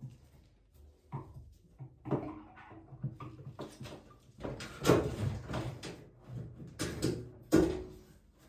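Irregular knocks and clanks of parts being handled while a washing machine is taken apart for a drum and bearing change, two of them louder, about halfway through and near the end.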